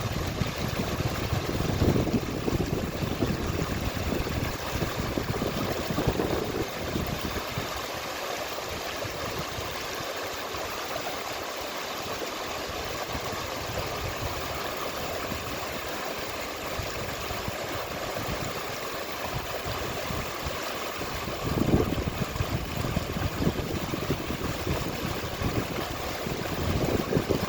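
River water flowing: a steady rushing wash, with stronger low rumbling in the first several seconds and again from about twenty-two seconds on.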